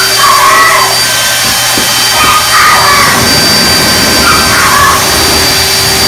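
Kobalt cordless leaf blower running at full blast, a steady rush of air with a high motor whine.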